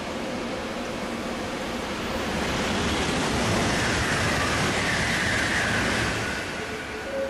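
Doctor Yellow Shinkansen inspection train passing at speed. A rushing noise swells about two seconds in, peaks with a whistling tone that drops slightly in pitch, and fades about six seconds in.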